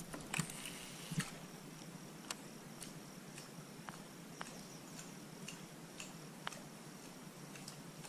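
Fishing rod and reel working a lure on the retrieve: light, sharp clicks about twice a second, after a couple of louder knocks in the first second or so. A faint steady high-pitched hum runs underneath.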